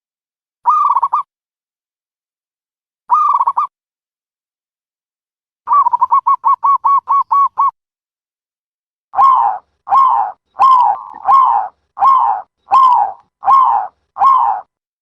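Dove calling. There are two single calls near the start, then a fast run of about ten short notes, then eight longer notes repeated evenly, each cut off into complete silence as in an edited recording.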